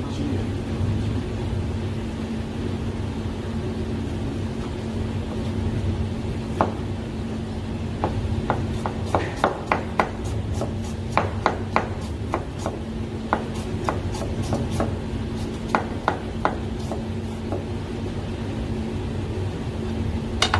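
A chef's knife chopping ginger on a plastic cutting board: irregular sharp knocks, coming thickest in the middle, over a steady low hum.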